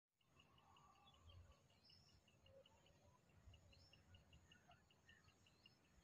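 Near silence: faint outdoor ambience with an insect chirping steadily, about five times a second, and a few faint bird calls.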